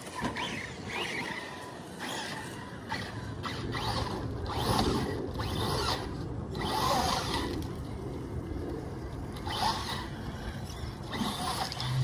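Axial Capra RC rock crawler, driven by a Hobbywing Fusion 1800kv brushless motor, crawling over rocks and gravel: the motor and drivetrain whine in short spurts as the throttle is blipped.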